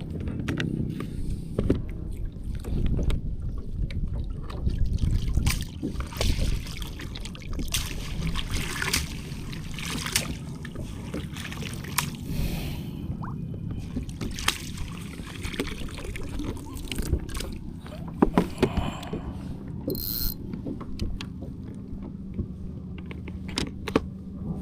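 Knocks, clicks and rustling of handling gear aboard a kayak over a steady low rumble of wind and water.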